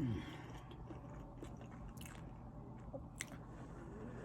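A person chewing and biting food close to the microphone, with a short falling hum at the start and a few sharp mouth clicks.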